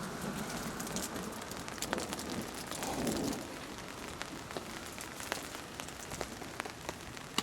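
Steady rain falling, with many separate drops ticking on a nearby surface, and a slightly louder swell about three seconds in.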